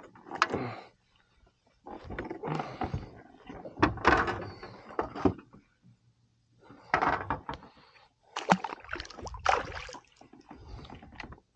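Handling noise on a plastic fishing kayak: irregular bursts of rustling, knocking and clicking as gear is moved about on the hull, in about five spells with short pauses between.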